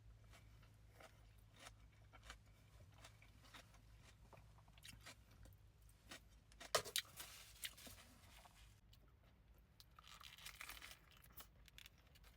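Faint close-up eating: a person biting and chewing crunchy food, with a cluster of louder crunches about halfway through and a short stretch of rustling later on.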